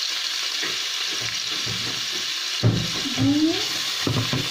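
Diced pork frying in oil in a nonstick pan, a steady sizzling hiss, with a sharp knock a little past halfway and a few softer knocks near the end.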